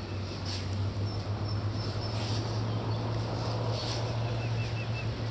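Steady rushing of river water with a constant low hum beneath it. A bird chirps a quick run of about five short notes about four seconds in, with a few fainter, higher notes earlier.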